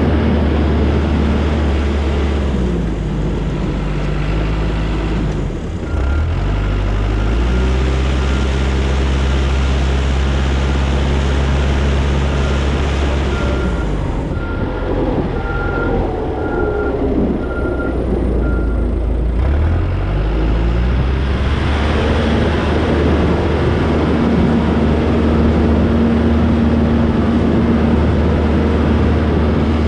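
Cat track skid steer's diesel engine running steadily under load, its revs dropping and picking back up a few times. Through the middle stretch a backup alarm beeps at an even pace while the machine reverses.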